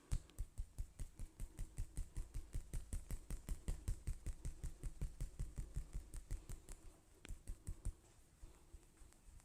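Percussive massage: the barber's hands striking rapidly and rhythmically on the body, about six soft slapping thumps a second. The strikes falter about seven seconds in and stop about a second later.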